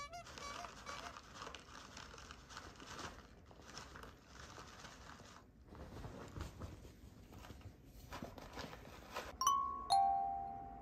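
Crinkling and rustling of a plastic snack packet, irregular and crackly, the sound that draws the cat out. Near the end a two-note chime sounds, high then lower, the second note ringing away.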